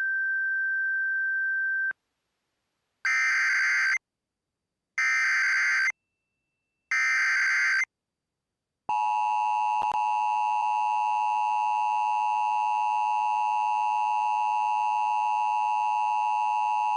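Emergency Alert System tones. A steady single high tone ends about two seconds in. Then come three one-second bursts of the screechy digital SAME header data, about a second apart. From about nine seconds in, the long steady two-tone EAS attention signal sounds, its two pitches close together.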